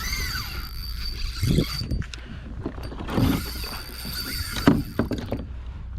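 Hobie Compass pedal kayak under way: the pedal drive knocking and creaking at irregular intervals, over a steady low rumble with water against the hull.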